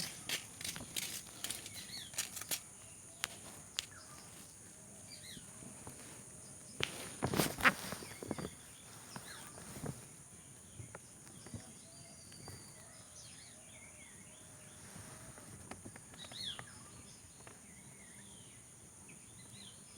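Outdoor rural ambience: a steady high-pitched hiss, scattered light clicks and rustles, and a louder rustling scrape about seven to eight seconds in. A few short bird chirps come later.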